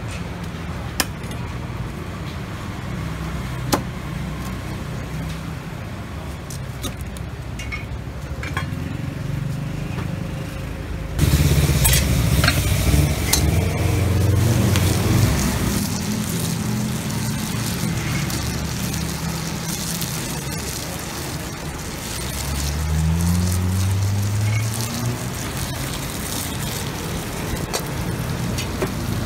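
Roadside traffic engines running throughout. In the first part, a cleaver chops raw crab on a wooden board with two sharp chops. From about eleven seconds in, gas burners roar under lidded pans with food sizzling, and a vehicle speeds up around two-thirds of the way through.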